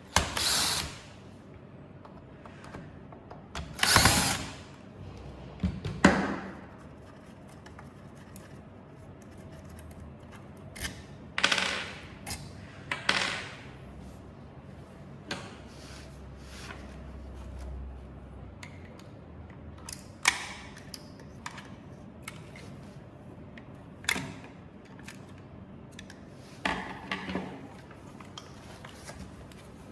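Electric screwdriver run in short bursts, about nine times at irregular intervals, as screws are driven out during disassembly.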